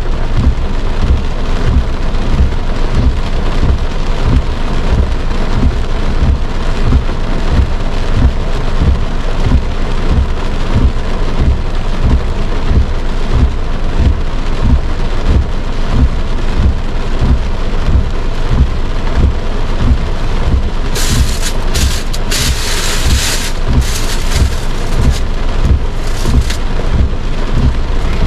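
Heavy rain drumming on a car's roof and windshield, heard from inside the car: a loud, dense, fast pattering. Towards the end, several bursts of brighter hiss break in.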